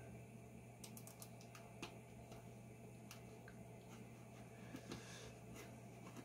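Faint computer mouse clicks, a scattered handful of sharp clicks in near silence, over a steady low hum.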